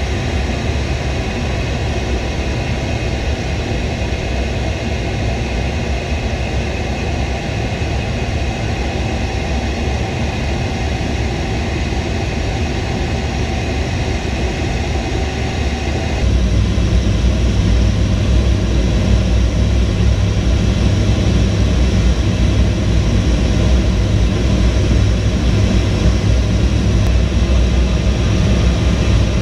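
Steady drone of a jet aircraft in flight, a dense rushing noise with a low rumble. About halfway through it switches abruptly to a louder, deeper rumble.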